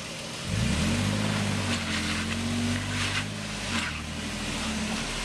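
Toyota Tacoma pickup's engine revving up about half a second in and held under load as the truck climbs a rock ledge off-road, then easing back a little past the middle.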